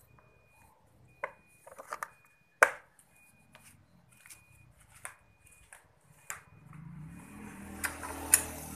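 Sharp clicks and knocks of hands and metal parts being handled on a scooter's engine and wiring, several separate strikes with the loudest about two and a half seconds in. Near the end a low hum rises, with a few more clicks over it.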